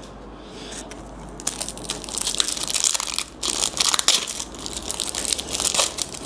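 Trading card pack wrapper being torn open and crinkled by hand: a dense crackling that starts about a second and a half in and comes in spurts.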